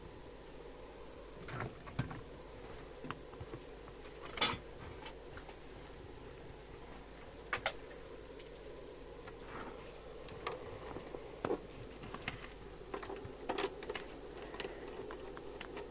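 Scattered light clicks and knocks of bench equipment being handled, switches and connectors, as test gear is switched off and a CB radio is connected to its aerial, over a faint steady hum.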